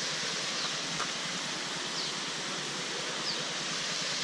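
Steady rush of water from a cascade, with a few faint short high chirps over it.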